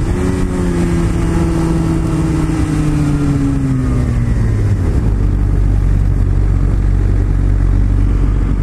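Sport motorcycle engine heard from the rider's seat, its pitch falling steadily for about four seconds as the bike slows, then running at low, steady revs.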